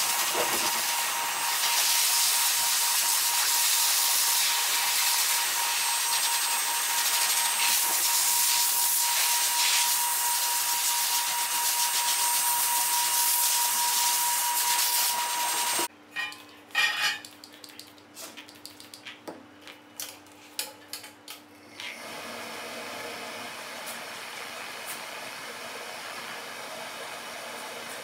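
High-velocity pet dryer blowing through its hose onto a wet poodle coat: a loud steady rush of air with a thin steady whine. It cuts off suddenly a little past halfway, leaving a few seconds of scattered clicks and knocks, then a quieter steady rushing noise.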